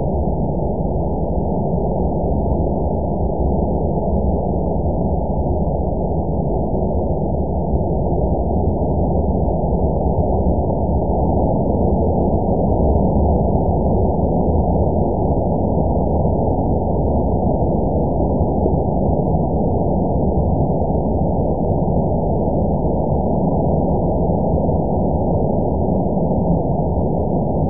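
Steady, muffled rumbling noise with no distinct events and no change in level.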